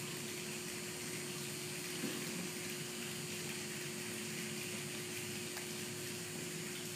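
Steady room noise in a large gymnasium: an even hiss with a constant low hum and no singing.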